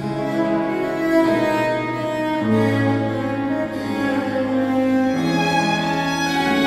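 Baroque trio sonata played on bowed strings: a violin melody over a low bowed bass line. Long sustained notes, with the bass changing pitch about two and a half seconds in and again near five seconds.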